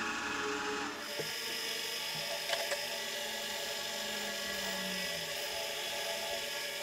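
Milling machine spindle running with a 5 mm two-flute end mill cutting into a steel pulley: a steady machine whine, with two sharp ticks about two and a half seconds in.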